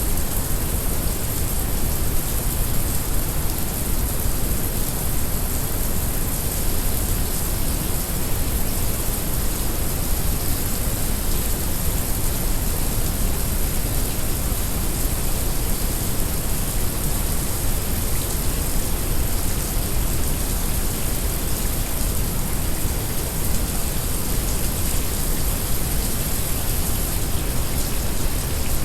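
Heavy rain falling steadily, mixed with brown noise: an even hiss over a deep, constant rumble.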